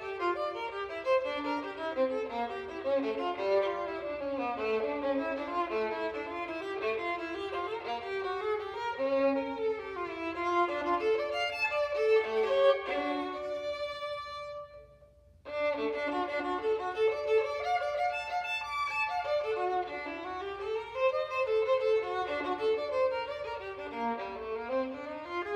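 Solo violin playing a fast, continuous run of notes. About thirteen seconds in, a note is held and rings out, followed by a brief pause before the running passage starts again.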